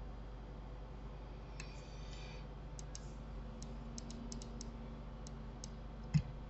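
Computer mouse and keyboard clicks: about a dozen short, sharp clicks in uneven groups, with one louder knock near the end, over a faint steady hum.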